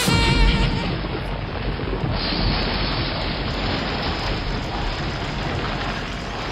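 Large arena crowd cheering and applauding just as the saxophone music ends, a steady wash of noise that slowly dies down.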